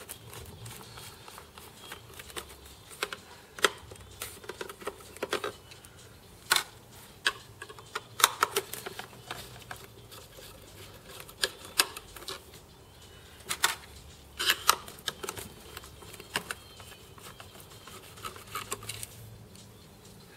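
Irregular small clicks and ticks of a magnetic screwdriver undoing self-tapping screws in the plastic housing of a PTZ camera, in scattered clusters, over a low steady hum.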